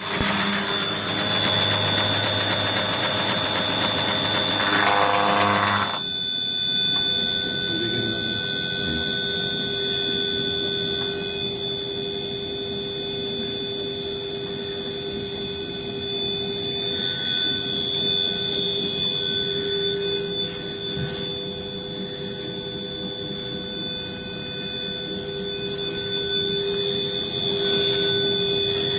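Two-drum brush-sanding machine running with abrasive brush drums sanding rubberwood, a steady machine noise with constant high-pitched whine tones. About six seconds in, the rougher, louder noise cuts off abruptly, leaving a steadier hum and whine.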